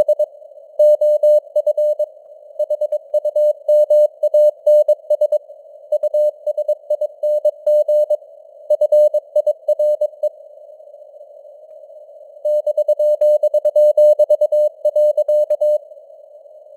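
Morse code (CW) sent at 22 words per minute on a single steady tone, keyed in dot-dash groups over simulated radio band hiss, with the signal fading up and down in strength. The sending pauses for about two seconds midway, then stops shortly before the end, leaving only the hiss.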